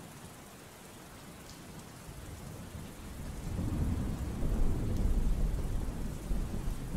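Steady rain with a deep roll of thunder that builds from about three seconds in, is loudest in the middle and eases off near the end.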